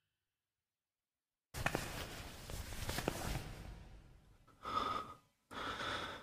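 Soft breathing: after a second and a half of silence comes a long, noisy breath with a few faint clicks, then two short breaths near the end.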